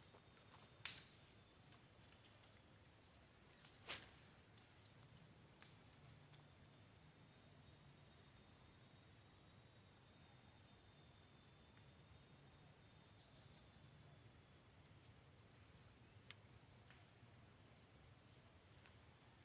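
Near silence apart from faint, steady, high-pitched insect chirring, with a few soft clicks, the clearest about four seconds in.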